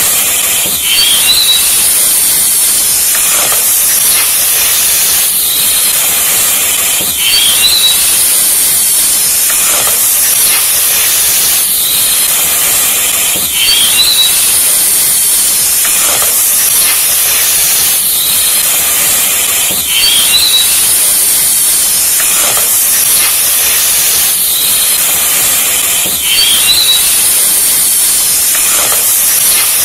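Loud, steady hissing sound effect on a loop, repeating about every six seconds with a faint chirp at each restart, standing for the sizzle of a red-hot knife blade cutting into a hand.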